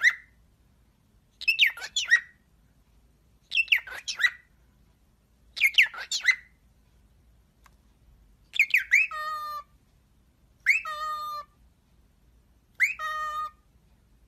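Cockatiel calling about every two seconds while bowing to its reflection. The first four calls are quick chirping whistles; each of the last four is a chirp followed by a held, lower buzzy note. This is typical of a displaying cockatiel's song.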